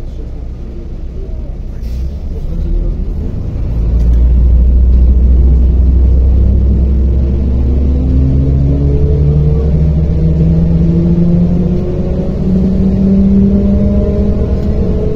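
MAZ-105.065 city bus running under way, heard inside the passenger cabin: a heavy drivetrain rumble that grows louder about four seconds in, then a whine rising in pitch as the bus gains speed.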